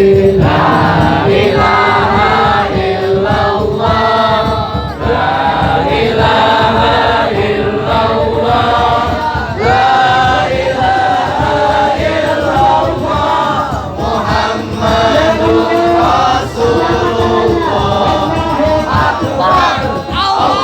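A group of voices chanting together in a continuous devotional Islamic chant.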